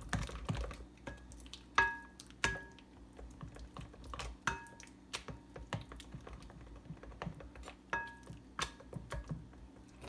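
A kitchen utensil clicking and scraping in a bowl as egg is mixed into mashed banana. Several sharper knocks against the bowl make it ring briefly.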